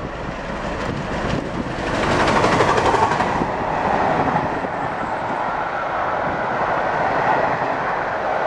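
Main-line steam locomotive passing with a train of coaches: its exhaust is loudest about two seconds in, then comes the steady rumble and clatter of the coaches' wheels on the rails.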